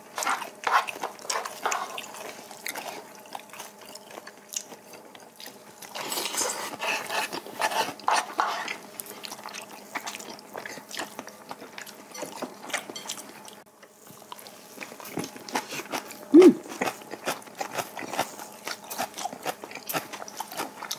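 Close-miked eating: chewing and biting into kimbap, with small clicks of chopsticks and spoons against bowls. About six seconds in comes a louder stretch of a few seconds, likely slurping of kalguksu noodles. Near sixteen seconds there is a short hummed 'mm' from one of the eaters.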